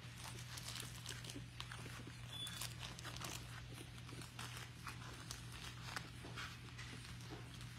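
Four-week-old puppies moving about on their bedding: faint, irregular scratching, tapping and rustling of small paws, with a steady low hum underneath.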